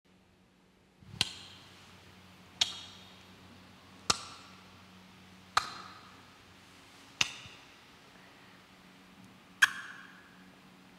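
Slow, deliberate footsteps of hard shoes on a hard floor, a sharp ringing click about every one and a half seconds, with a louder knock near the end as hands come down on a wooden desk. A faint steady electrical hum lies underneath.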